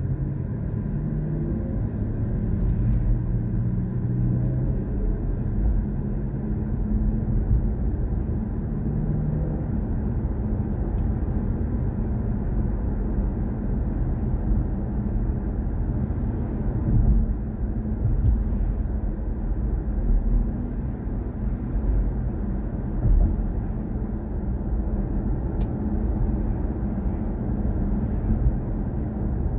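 Road and tyre noise inside the cabin of a BMW i4 M50 electric car driving along: a steady low rumble with no engine note.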